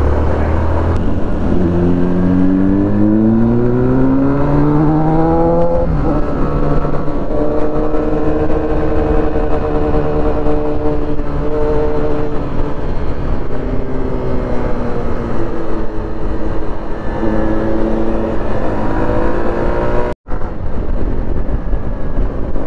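Small 110cc commuter motorcycle engine heard from the rider's seat: it accelerates with rising pitch for about six seconds, drops in pitch at a gear change, then holds a fairly steady cruising note with a slight easing and pickup. The audio cuts out for a split second near the end.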